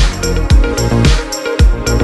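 Background electronic music with a steady beat, a heavy kick drum about twice a second.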